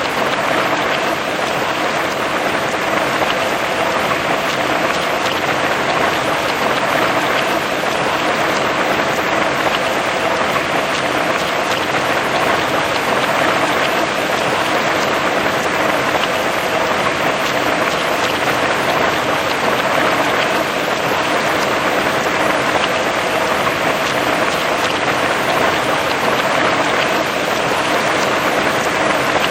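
Heavy rain falling steadily on grass and trees: a dense, even hiss of countless drops.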